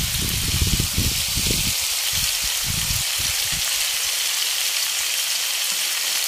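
Pre-boiled chicken feet frying in oil with onion, tomato and spices in a hot pan: a steady sizzling hiss. Some low thumps in the first few seconds.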